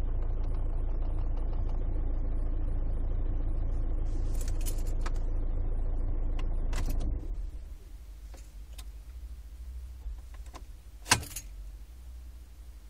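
Skoda Octavia II cabin noise with light clicking rattles from the glovebox. About seven seconds in the steady running noise drops away, leaving scattered sharp clicks, the loudest near the end.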